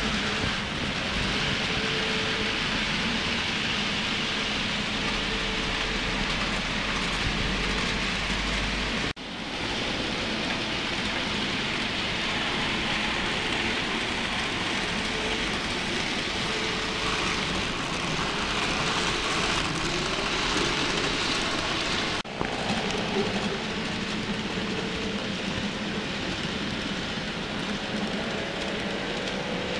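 N-scale model trains running on a layout: a steady hissing whir of small wheels on track and electric motors, with a faint motor whine. The sound cuts out for an instant twice.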